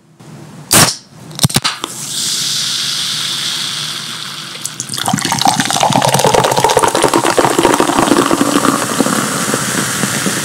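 A Canada Dry soda can cracked open with a sharp pop of the tab about a second in, followed by a steady carbonation fizz. From about five seconds in the fizzy soda is poured into a glass with a continuous splashing gush.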